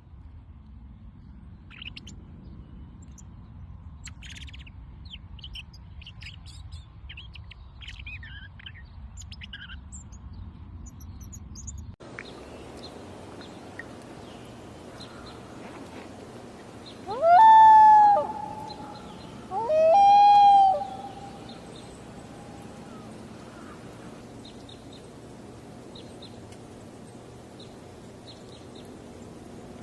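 Small birds chirping in short high notes over a low rumble. After a cut, two loud drawn-out bird calls, each rising sharply and then holding one note, come about three seconds apart, with faint chirps around them.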